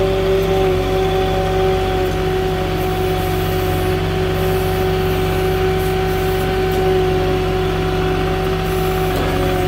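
Moffett truck-mounted forklift running steadily as it drives with a loaded pallet on its forks, a constant mechanical hum with a held tone over it.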